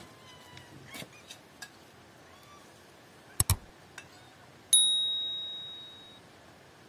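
Subscribe-button animation sound effect: two sharp clicks about three and a half seconds in, then a bright bell ding that rings out and fades over about a second and a half.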